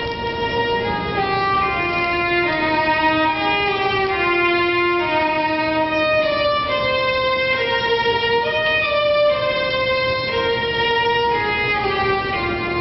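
Solo violin playing a slow melody of held notes, one note at a time.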